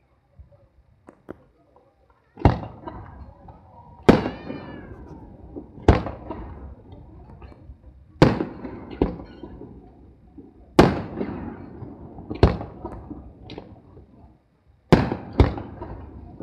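Aerial firework shells bursting overhead. After a near-silent start, about ten sharp booms come a second or two apart from about two seconds in, each trailing off in a rumbling echo.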